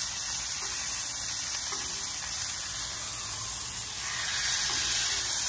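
Flat-cut brisket searing on a hot Blackstone flat-top griddle: a steady sizzle that grows a little louder near the end.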